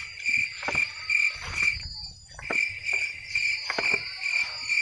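Crickets chirping in a regular pulsed rhythm, about three chirps a second, pausing briefly about two seconds in, with a thinner continuous high trill from another insect above them. A few soft footsteps on a dirt path are heard under the chirping.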